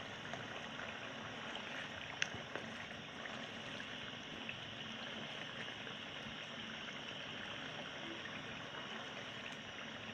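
Chicken karahi sizzling and bubbling steadily in its oil and tomato masala as it fries down, with one sharp click about two seconds in.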